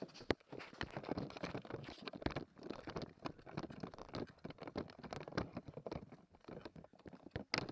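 Irregular crunching steps with clicks and rattles of gear close to the microphone, as of a player moving quickly on foot.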